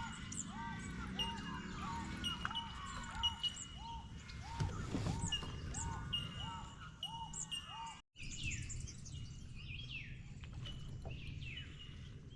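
Birdsong: one bird repeats a short arching whistled note about every two-thirds of a second, while bell miners (bellbirds) give short high pings over it. About eight seconds in the sound cuts briefly, and different birds take over with quick falling calls.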